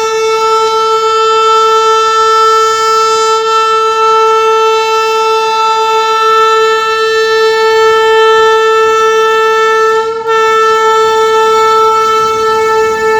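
Indian Railways passenger locomotive's horn sounding continuously: one loud, steady high note with a momentary break about ten seconds in before it carries on.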